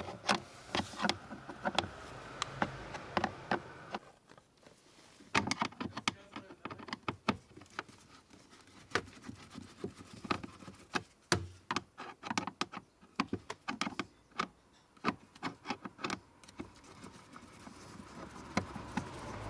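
Screwdriver turning a small self-tapping screw out of plastic trim under a steering column: a string of irregular clicks, taps and scrapes, with a brief lull about four seconds in.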